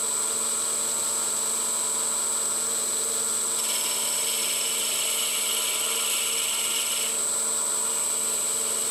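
Schaublin 102 lathe running with a steady high whine while a high-speed steel boring bar bores out the centre hole of a brass barrel cap. A brighter cutting hiss joins from about four to seven seconds in as the tool bites.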